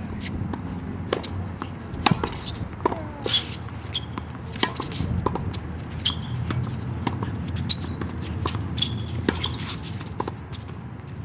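Tennis play: a ball being struck and bouncing, with sharp irregular hits about every second. Several short high squeaks of shoes on the court come between them, over a low murmur of voices.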